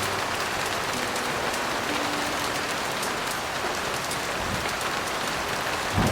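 Heavy rain falling steadily, a dense even hiss. A few faint, soft, low piano notes hang in the first half, and there is a brief low thump near the end.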